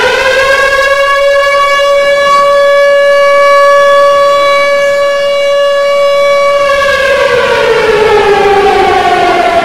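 Air-raid siren wailing: the tone holds one steady pitch for several seconds, then falls away about seven seconds in and starts to rise again near the end. It is the air-raid alert that sends people to shelters from missile and bomb attacks.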